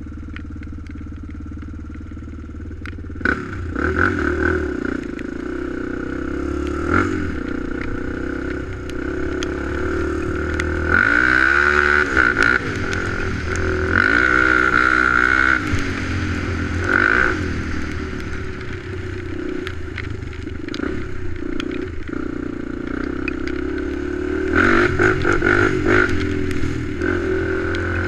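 ATV engine idling for about three seconds, then revving up and down repeatedly as the quad is ridden.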